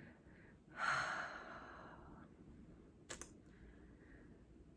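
A woman sighs, one long breath out that fades away, then makes a short mouth click about three seconds in.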